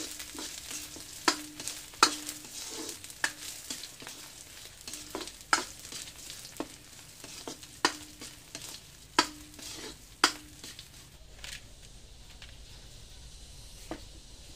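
Wooden spatula stirring small fish frying in oil in a steel wok: irregular scrapes and knocks against the metal, each leaving a short low ring, over a steady sizzle. The stirring stops about eleven seconds in, and a fainter sizzle remains.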